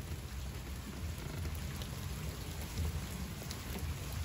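Heavy rain falling steadily, an even hiss with a low rumble beneath it.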